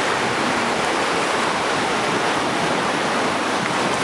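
Steady rushing of a river in flood, fast water surging against a bridge, mixed with wind on the microphone.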